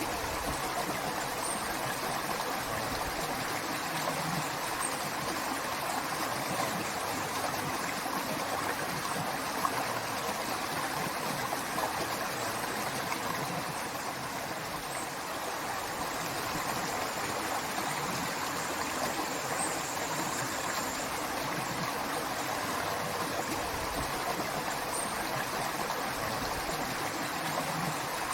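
River water rushing and splashing over rocks in a steady, even flow.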